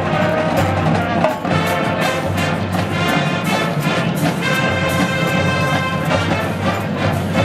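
College marching band playing live: brass chords over a drumline's steady beat, with a held brass chord a little past halfway.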